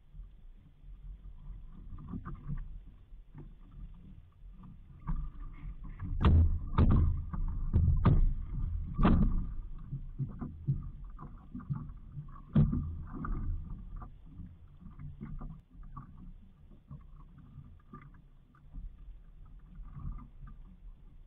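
Water sloshing against the hull of a small outrigger boat, with low wind rumble on the microphone. About six seconds in comes a run of loud splashes and knocks as a man goes over the side into the water, with one more sharp hit about twelve seconds in.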